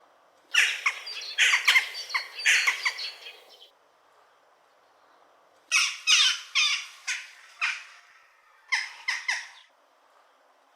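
Jackdaw calling: three quick runs of short, harsh calls, the first the longest and the last only three or four calls, with pauses of about two seconds between runs.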